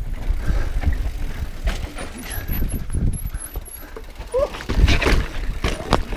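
Mountain bike riding over rough rock: wind buffeting the microphone, tyres rumbling and the bike rattling, with heavier knocks about five and six seconds in and a brief rising brake squeal just before them.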